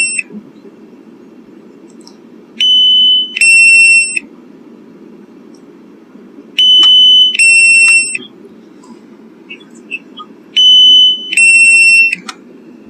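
Drone remote controller's low-battery alarm: a loud two-tone beep, a higher tone then a slightly lower one, repeating about every four seconds, three times. It warns that the drone's battery is low and it has to land.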